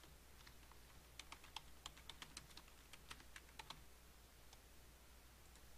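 Faint typing on a computer keyboard: a quick, uneven run of key clicks that stops a little under four seconds in.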